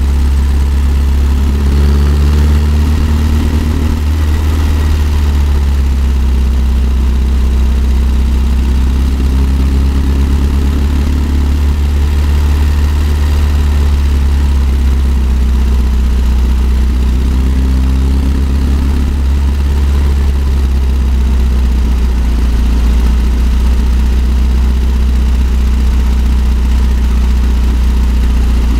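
1964 Volkswagen Type 2 Microbus's air-cooled flat-four engine pulling steadily uphill. Its exhaust note rises and eases gently in pitch a few times over a heavy, deep rumble.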